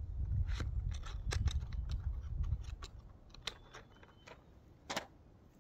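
Low wind rumble on the microphone with scattered small clicks and ticks, about nine in all; the rumble fades out about halfway through, and the sharpest click comes near the end.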